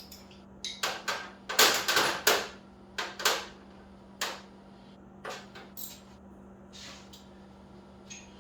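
Metal hand tools clinking and clattering: a 17 mm socket and extension being picked out and handled, in a string of sharp clicks and knocks that bunch together a second or two in and thin out toward the end.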